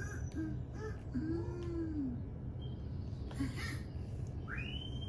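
A young child's short wordless vocal sounds: brief hums, one longer hum that rises and falls, then a high rising squeal near the end, over a low room hum.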